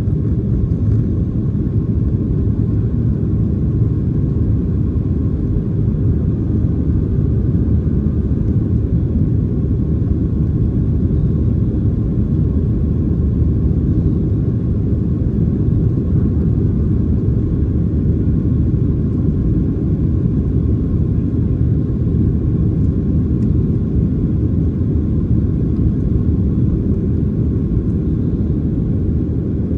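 Steady low rumble inside the cabin of a Boeing 737-700 in its climb after takeoff, from its CFM56-7B engines and the air rushing past the fuselage, with a faint high tone above it.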